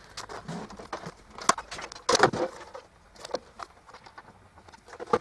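Scattered plastic clicks and knocks of a Melitta Caffeo CI coffee machine's housing being fitted back together by hand, with a short cluster of louder knocks about two seconds in.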